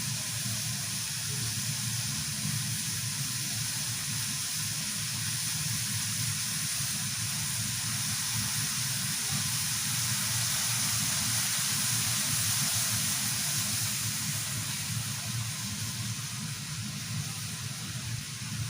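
Pot of ginger, kencur and lime-juice mixture boiling on the stove: a steady hiss that eases slightly near the end.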